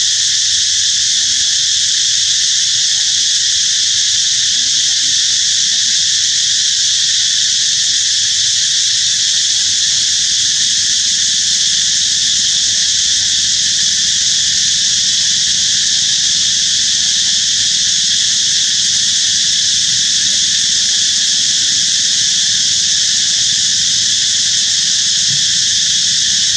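A steady, loud, high-pitched drone of an insect chorus.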